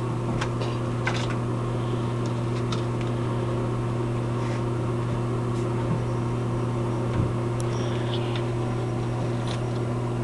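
A steady low electrical hum, with a few faint light clicks and taps scattered through.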